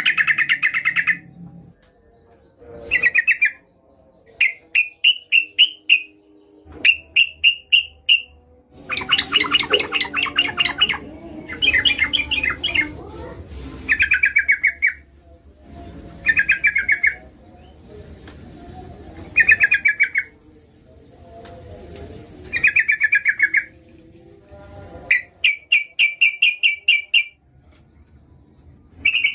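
Female yellow-vented bulbul (trucukan) calling: short bursts of rapid chattering notes, each about a second long, repeated every second or two, with a denser run of chatter around a third of the way in. It is a call that draws males to answer.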